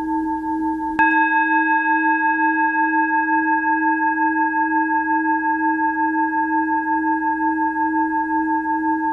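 A struck bell-like metal instrument ringing with a steady, wavering tone. A fresh strike about a second in adds brighter overtones that slowly die away.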